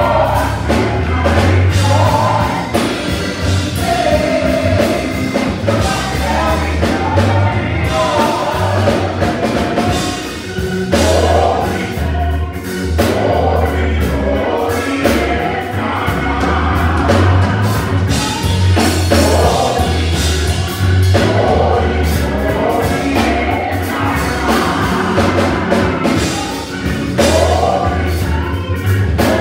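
Small gospel vocal group singing together into microphones, over accompaniment with a strong, pulsing bass line.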